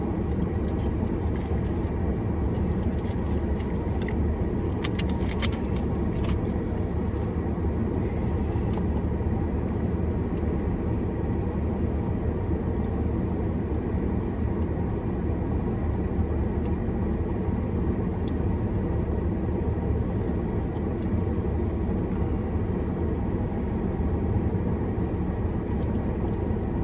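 Steady low rumble, like a running vehicle heard from inside, with a few faint clicks and taps.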